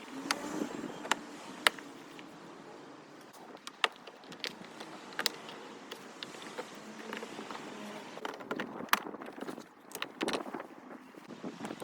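Scattered sharp clicks and clinks with rustling in between, from hand work on a car door's parts and fittings.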